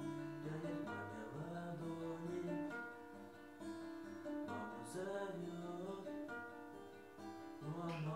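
Acoustic guitar playing a song's accompaniment.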